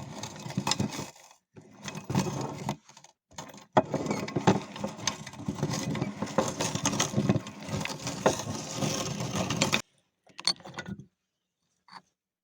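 Meat grinder running with candy being fed through it: a busy mechanical noise full of small clicks, broken off abruptly twice and stopping about ten seconds in, with two short bursts after.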